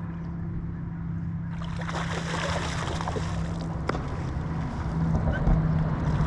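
A boat motor hums steadily. About a second and a half in, a loud rush of water and wind noise joins it.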